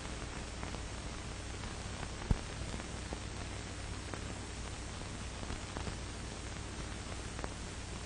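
Surface noise of a 1947 film soundtrack: a steady hiss over a low hum, with scattered faint clicks and one sharper pop about two seconds in.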